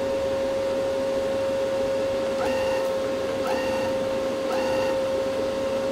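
Stahlwerk MIG MAG 200 Puls Pro welder running with a steady hum. From about halfway in, its wire-feed motor starts up again and again, about once a second, each time a short rising whine, as wire is jogged through the torch; the feed keeps stopping after a short length.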